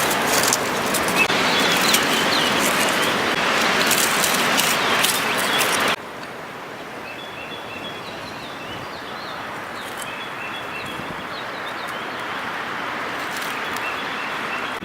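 Strong wind noise rushing over the microphone, with small birds chirping throughout. About six seconds in, the wind noise cuts off abruptly, leaving a softer breeze under the repeated bird chirps.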